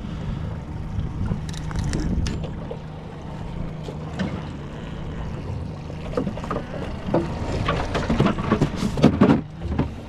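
Handling knocks as a freshly caught Atlantic bonito is unhooked and laid into a cooler on a boat deck, with a cluster of sharp knocks near the end, over a steady low hum from the boat.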